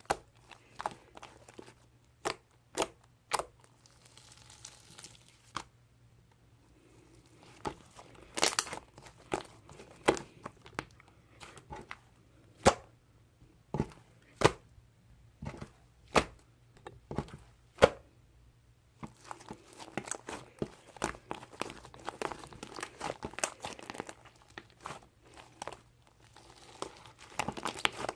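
Close-up handling noise: scattered sharp clicks and snaps, with stretches of crinkling and tearing, the crinkling steadier in the last third.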